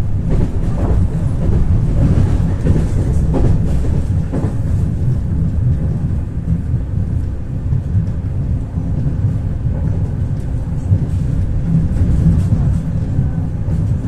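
Ivolga 4.0 electric train running along the track, heard from inside the carriage: a steady low rumble, with a few sharp clicks in the first few seconds.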